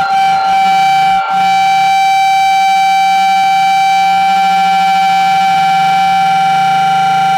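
A megaphone sounding one loud, steady, high-pitched tone that holds its pitch without a wail, with a brief dip about a second in.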